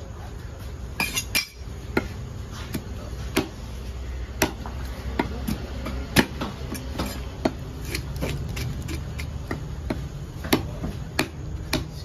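Fish-market clatter: irregular sharp knocks and clicks, well over a dozen, over a steady low rumble.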